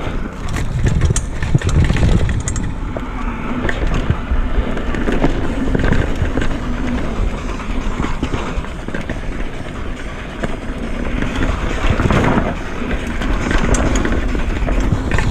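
Downhill mountain bike rolling fast down a dirt trail: steady tyre and trail noise with frequent short knocks and rattles from the chain and frame over bumps.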